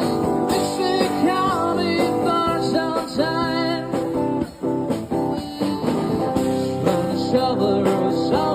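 A band playing a rock song, with guitar and singing.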